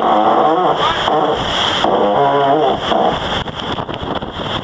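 A crew member's voice calls out twice over wind buffeting the microphone and rushing water on a racing yacht's deck in heavy seas; from about three seconds in only the rush of wind and water is left, with a scatter of sharp knocks.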